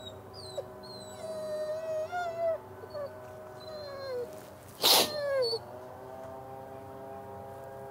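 Doberman whining: a run of wavering, high-pitched whines that slide downward, then a short loud burst about five seconds in followed by one more falling whine. It is the whining of an over-excited young dog made to wait calmly on the leash, which the trainer puts down to emotions and hormones.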